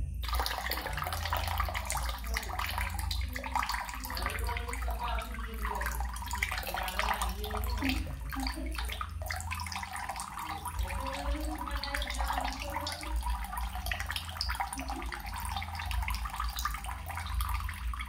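Running water, a steady rushing and splashing with faint gurgles, like a flowing stream.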